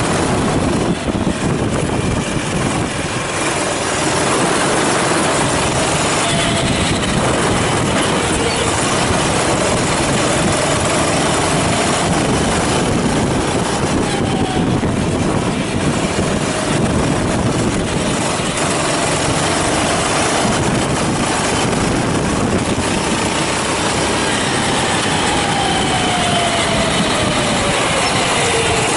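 Go-kart engine running hard and loud, its pitch rising and falling with the throttle, with a long drop in pitch near the end.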